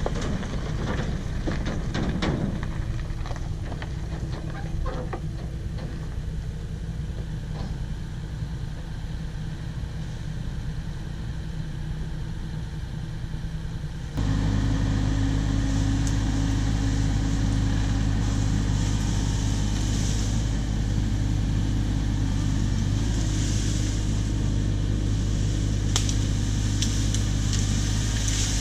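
Cat 304 mini excavator's diesel engine running steadily, with a few light knocks in the first seconds. About halfway through it steps up suddenly to a louder, higher-throttle drone.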